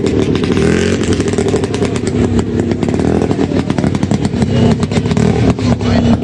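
Vintage snowmobile engine running steadily at idle, its pitch wavering slightly.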